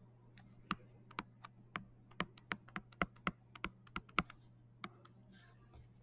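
Stylus tapping and clicking on a tablet screen while handwriting: a fast, irregular run of faint sharp clicks, over a faint steady low hum.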